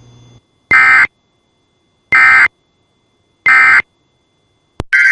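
Three short EAS digital data bursts, about a second apart, each a harsh buzzing warble. By their shortness and their place right after "This is only a test" they are the end-of-message codes that close the test. Near the end comes a click, and another data burst starts.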